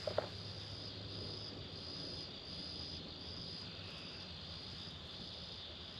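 Night insect chorus of crickets: a steady high trill, with a second, higher call repeating in short regular pulses.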